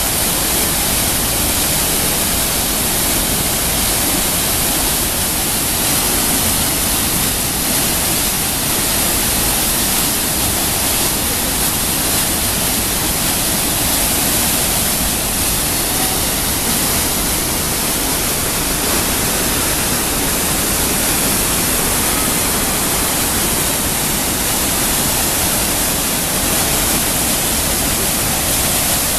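Choshi Otaki waterfall on the Oirase Stream: loud, steady rush of falling water, an even noise without a break.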